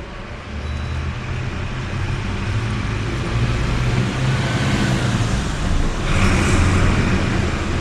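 A motor vehicle's engine running close by: a low rumble that grows louder over the first few seconds, with a burst of hiss about six seconds in.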